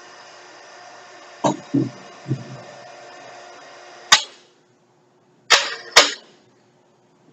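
Heavy metal knocks and clanks. Three dull thuds come about a second and a half in, then single sharp clanks near the middle and twice more near the end, over a steady shop hum that cuts off after the first sharp clank.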